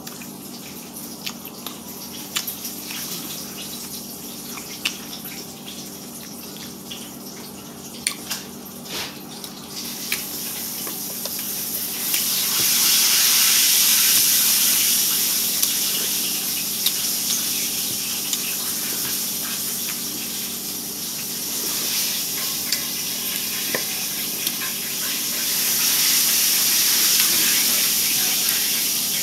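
Loud background noise: a steady rushing hiss over a low, even hum, swelling much louder about twelve seconds in and again near the end.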